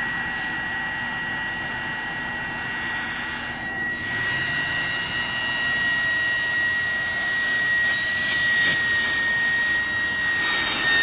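A running engine giving a steady high-pitched whine over a rushing hiss.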